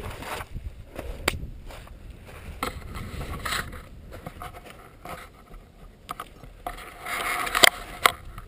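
Handling noise on a helmet-mounted camera: irregular scuffs, scrapes and knocks, with a louder rustling stretch and a sharp click near the end as a hand reaches the camera. No engine is running.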